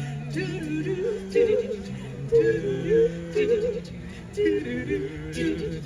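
A vocal group singing in close harmony: a bass voice holds long low notes beneath higher voices singing ornamented, wavering runs.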